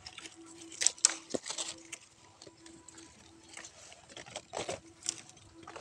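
Rustling and crackling of plants being handled during harvesting, in irregular bursts, with sharp snaps about a second in and again near the end.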